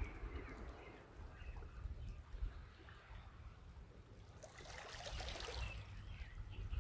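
Small sea waves lapping faintly on a pebble shore, swelling a little for a second or so about four and a half seconds in.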